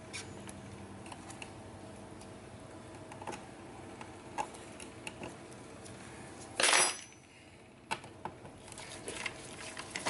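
Light metallic clicks and scrapes of a thin metal pick working at screws on a laptop's metal frame, picking through the warranty seal. A short, louder scrape comes about seven seconds in, with a few more clicks near the end.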